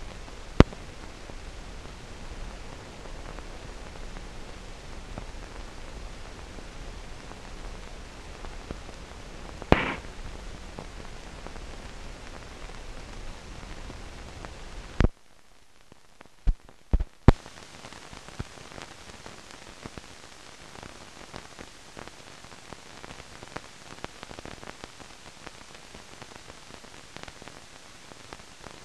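Steady hiss and static with a few sharp clicks and pops, typical of an old film soundtrack running with no programme sound. About halfway through, the hiss drops to a lower level, with a quick run of clicks around the change.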